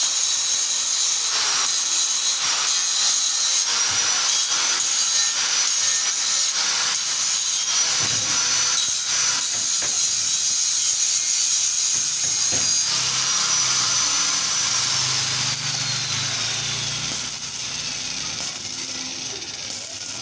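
High-speed electric power tool working metal, with a high whine over a harsh hiss. About 14 seconds in it winds down, its whine falling steadily in pitch as it slows.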